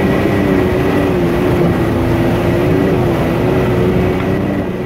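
Can-Am Maverick X3's turbocharged three-cylinder engine running at a steady, moderate throttle while the side-by-side drives through rushing floodwater, with water noise under the engine. The engine pitch wavers a little and eases briefly near the end.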